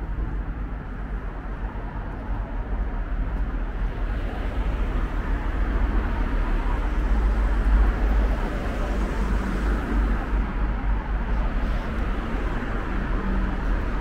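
Road traffic on a busy street: a steady wash of engine and tyre noise with a heavy low rumble, growing louder toward a peak about halfway through as vehicles pass.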